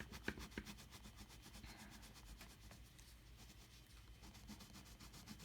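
Faint scratching of a coloured pencil stroking across sketchbook paper as colour is layered on, with a few light clicks near the start.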